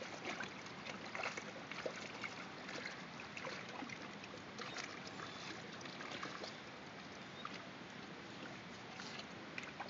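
Trout splashing at the water surface as they fight over food: a steady, busy patter of many small irregular splashes over lapping water.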